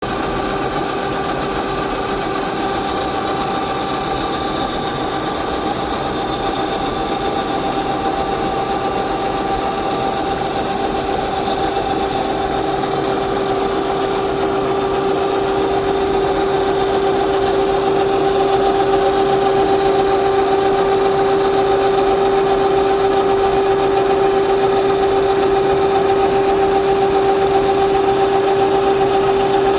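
Metalworking machine tool running steadily while machining 4140 hot-rolled steel: a constant-pitched hum over a noisy wash, growing slightly louder about halfway through.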